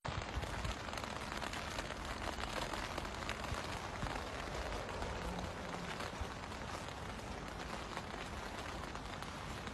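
Faint, steady outdoor background hiss with scattered soft ticks.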